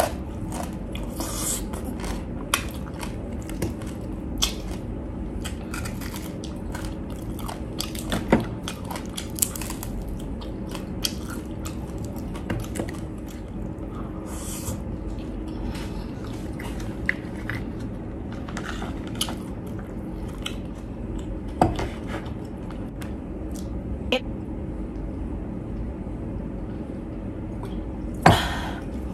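Close-up chewing and crunching of crispy deep-fried pork skin and meat, with many irregular sharp crunches over a steady low hum. A louder sound comes near the end.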